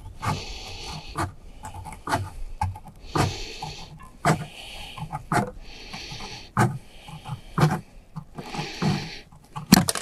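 Aviation tin snips cutting small burrs off the edge of a sheet-metal roofing seam: a crisp snip about once a second. Between the cuts the worker breathes heavily close to the microphone.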